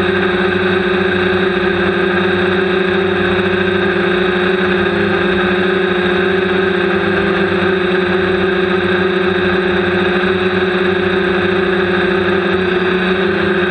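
Quadcopter's electric motors and propellers buzzing steadily in flight, heard close up from a camera mounted on the drone. The pitch dips and rises briefly near the end.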